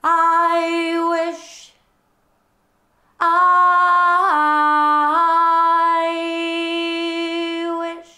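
A woman singing unaccompanied in long held notes. One note lasts about a second and a half, then after a short pause a longer phrase dips down a step, comes back up and holds.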